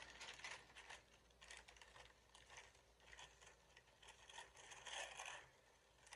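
Faint rustling and crinkling of tissue paper and a plastic bag being handled, in short irregular bursts, with the loudest rustle about five seconds in.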